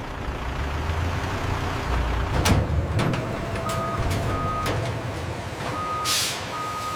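A truck's reversing alarm beeps at one steady pitch over a low engine rumble, in two pairs starting about halfway through. A short hiss of air comes near the end, like an air brake releasing.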